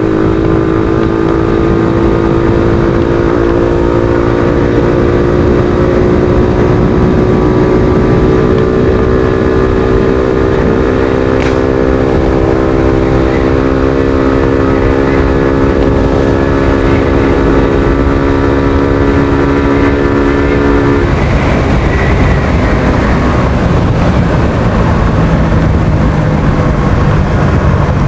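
Suzuki Thunder 125's single-cylinder four-stroke engine, fitted with a new muffler, running under way with its pitch slowly rising, over wind rush on the microphone. About 21 seconds in the engine note falls away, and it comes back near the end.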